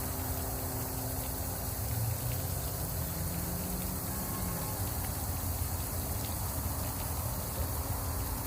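Fountain water splashing steadily, with a low rumble of road traffic underneath.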